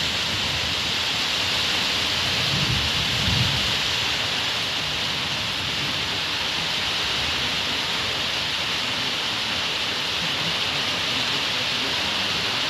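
Heavy rain falling steadily, with a low rumble of thunder swelling briefly about three seconds in.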